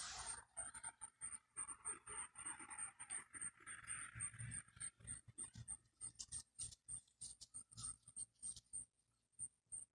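A dog's faint, quick panting with scratchy rustling, which dies away about halfway through, leaving scattered faint clicks. A faint high-pitched tick repeats a few times a second throughout.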